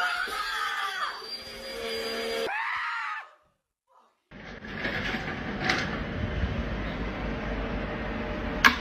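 Upright vacuum cleaner running steadily, with voices over it, cut off abruptly about two and a half seconds in. After a second of silence comes a steady rushing noise, ended by a sharp click.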